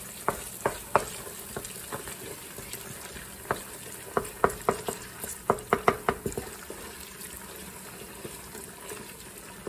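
Onions and garlic frying in olive oil sizzle steadily in a stainless steel pot while a wooden spoon stirs tomato paste into them. The spoon knocks irregularly against the pot, with a quick run of knocks in the middle.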